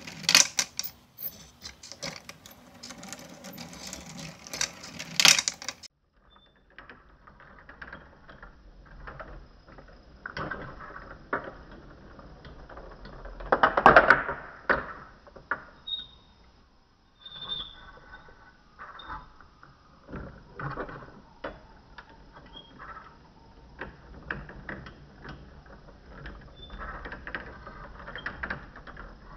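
Glass marbles clicking against each other and rolling along the automaton's 3D-printed marble-run track, with its motor-driven auger mechanism ticking as it turns. The clicks come irregularly, with a louder clatter about halfway through.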